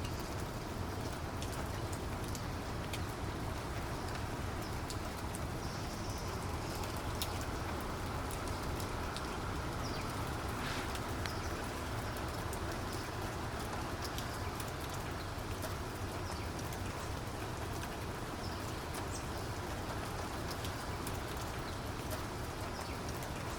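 Steady rainfall, a continuous hiss with many individual raindrops ticking sharply throughout.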